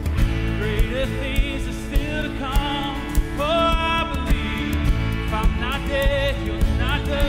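Live band of drums, bass, electric and acoustic guitars and keyboard playing an instrumental passage of a worship song with a steady beat, a wavering, bending lead melody on top.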